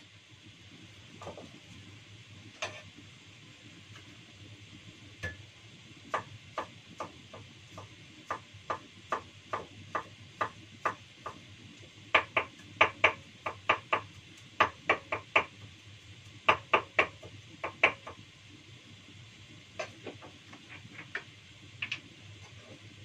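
Knife chopping on a cutting board: sharp, slightly irregular chops at about two a second, starting about six seconds in and stopping around eighteen seconds, with a few more chops near the end.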